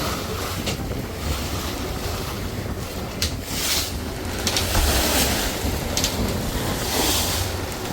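Wind buffeting the microphone aboard a tour boat at sea, over rushing water and a steady low rumble, with a few stronger gusts.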